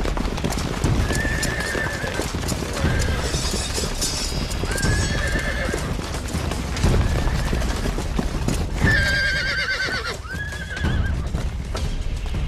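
Horses' hooves clattering rapidly on the ground, with several horse whinnies over the top, the loudest about nine seconds in.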